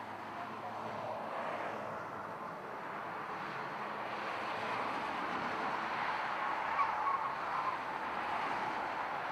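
Cars driving round a race circuit: a steady mix of engine and tyre noise that swells gradually as they come through, with a few brief sharper sounds about seven seconds in.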